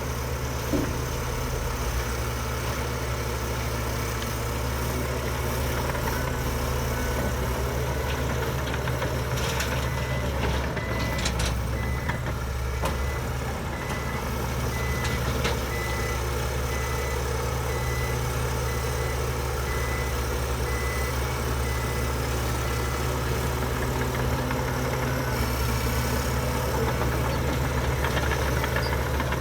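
Heavy diesel engine of a bulldozer running steadily, with a reversing alarm beeping in a regular on-off rhythm from about a third of the way in.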